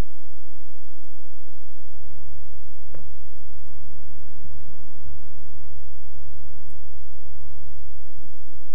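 Loud, steady electrical hum like mains hum in the recording, with a short faint click about three seconds in.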